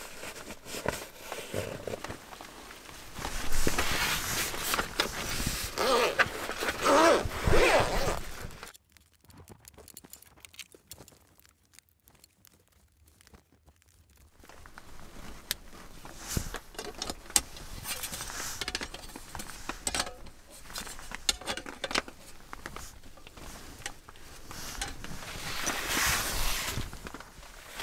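Rustling fabric and clinks of thin metal poles as a folding camp chair is taken from its carry bag and put together by hand. Louder handling comes in the first part, then several seconds of near quiet, then scattered clicks building again near the end.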